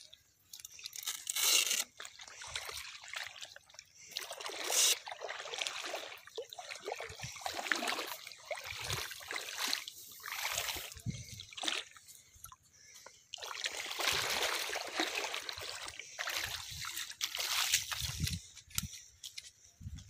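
Wet nylon gill net being pulled and dragged over wet sand and through shallow water: irregular rustling, scraping and sloshing that swells and fades, loudest about a second and a half in and again near five seconds.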